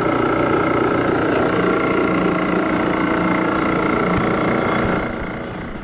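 Refrigerant recovery machine running steadily while pulling the charge out of the system, a constant motor hum with a steady whine; it fades down near the end.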